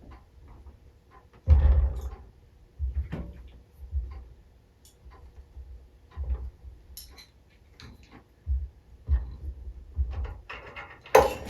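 Irregular clicks and knocks of small metal engine parts being handled and fitted by hand. A busier clatter starts near the end.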